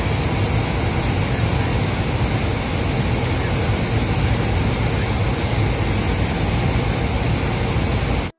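Steady rushing noise in an airliner cockpit flying through rain: air and rain streaming over the windshield, with a low engine hum beneath. It cuts off suddenly near the end.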